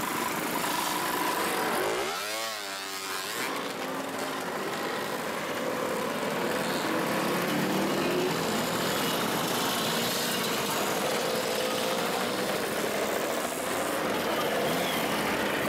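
A procession of motor scooters riding past, many small engines running together with pitches that rise and fall as the machines go by.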